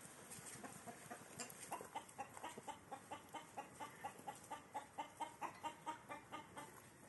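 Domestic chickens clucking: a fast, even run of short clucks, about four a second, starting about a second and a half in and stopping near the end.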